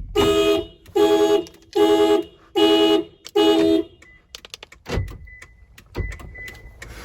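Car horn honking five times in a steady pulsing beat, about one honk a second, the pattern of a car alarm going off. It is followed by a scatter of clicks and two dull thumps over a faint high tone.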